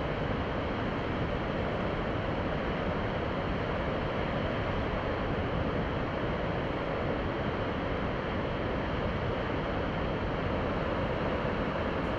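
Large waterfall at full flow: a steady rushing of falling water that does not change.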